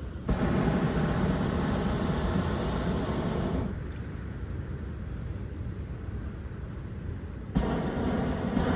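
Hot air balloon's propane burner firing in two blasts. The first starts suddenly just after the start and cuts off after about three seconds; the second starts suddenly near the end.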